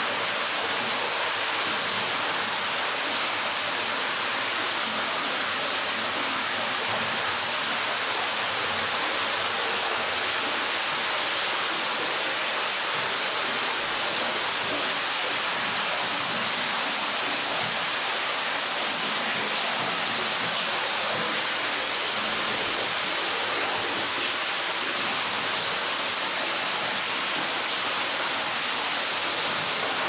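Steady, even rush of falling water from an underground waterfall inside a limestone cave.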